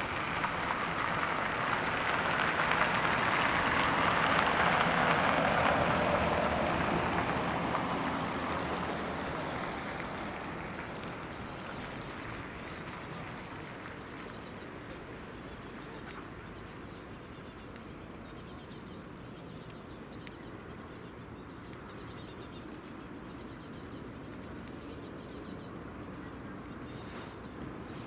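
The 'Yenisei' river motor launch's engine and hull wash passing by, rising to its loudest about five seconds in and then fading away. Insects chirp in short repeated bursts once the boat has faded.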